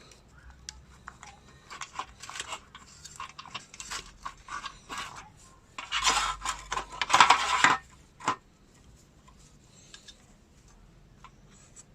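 Hands handling wiring connectors on a car's fuel pump assembly: scattered clicks and small plastic-and-metal rattles, with a louder, busier stretch of clattering about six seconds in that stops suddenly.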